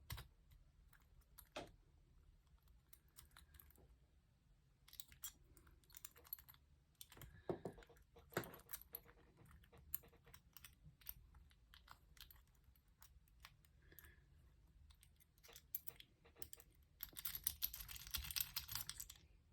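Faint, scattered metallic clicks and scrapes of a lock pick and tension tool working the pins inside a lock, with a denser run of clicking near the end.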